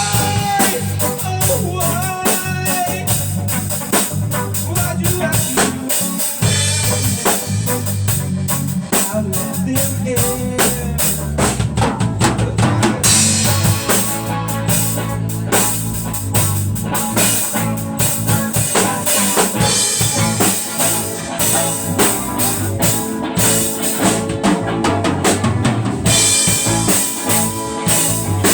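Band music driven by a drum kit playing a steady beat, with bass and other pitched instruments over it.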